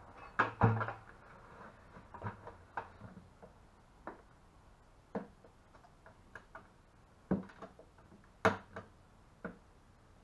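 Irregular clicks and knocks from a plastic 5-gallon bucket being cut by hand along a marked circle to make a hole in its wall, roughly one a second, loudest about half a second in and again near eight and a half seconds.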